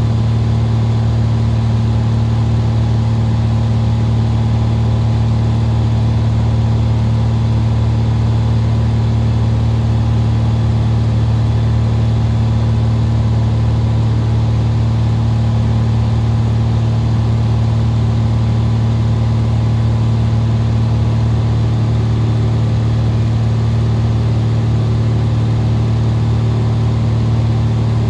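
Steady drone of a Cessna retractable-gear single's piston engine and propeller in flight, heard inside the cabin: an unchanging low hum with no change in power.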